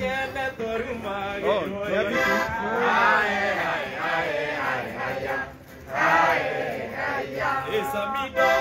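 Accordion and guitar played live, with a group of people singing and chanting along. The sound drops away briefly about halfway through.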